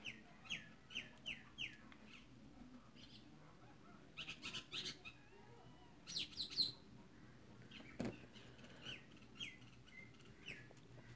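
Birds chirping in bouts of short, quick notes that each drop in pitch, with one faint knock about eight seconds in.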